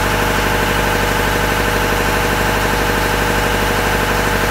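Boom lift's engine idling steadily, a constant hum that does not change.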